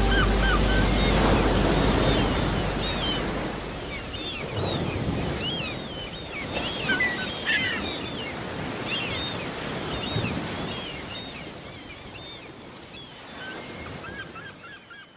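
Surf and wind noise with many short bird calls over it, the whole fading away steadily. The last held note of a song dies out in the first second.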